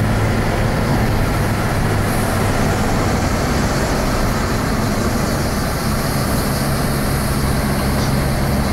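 Fiat Punto 1.2 16-valve four-cylinder engine heard from inside the cabin while driving, a steady engine hum over road and wind noise. The engine tone fades into the road noise a couple of seconds in and comes back strongly about six seconds in.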